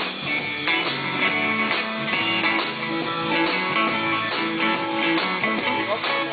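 Live band playing an instrumental passage with strummed guitar to the fore and no singing.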